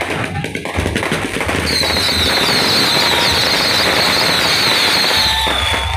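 Fireworks and firecrackers going off in a dense, rapid crackle. A high warbling whistle joins over it from about two seconds in.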